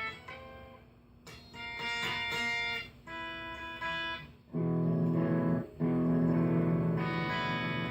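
Guitar being played: picked single notes and short runs with gaps between them, then from about halfway much louder chords that ring on, broken once by a short gap.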